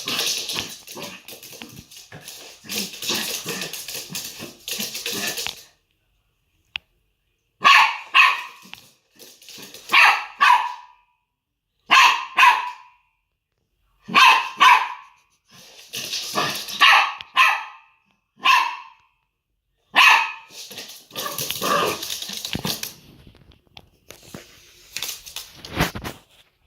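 Small dog barking in short, sharp bursts, often two or three in quick succession, repeated every couple of seconds. Stretches of rustling noise at the start and again after the middle.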